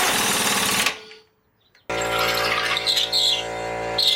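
A short burst of about a second from a pneumatic impact wrench hammering a shock-absorber nut tight. About two seconds in, a steady humming drone made of several fixed tones starts and continues.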